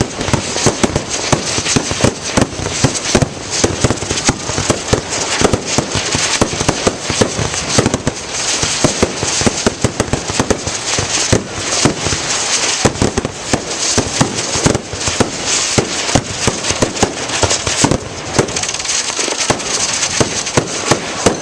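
Fireworks going off in a dense, continuous barrage of bangs and crackles, many a second, with no let-up.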